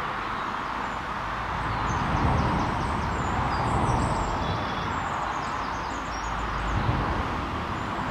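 Steady rushing outdoor background noise, with small birds chirping high above it throughout.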